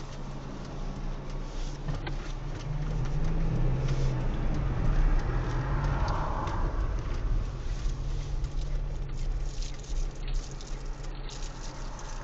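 Car engine and road noise heard inside a moving car's cabin. The engine note rises and gets louder for a few seconds around the middle, as under acceleration, then settles back to a steady cruise.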